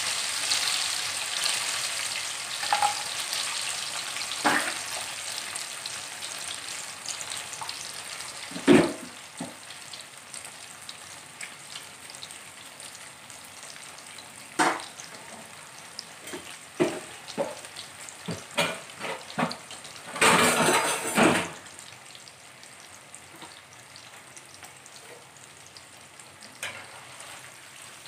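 Battered mock-chicken pieces deep-frying in hot oil in a steel pot: a steady sizzle that is loud at first and gradually quietens as the pieces crisp. A metal spoon gives a few scattered knocks against the pot, with a brief clattering scrape as it stirs, about three quarters of the way through.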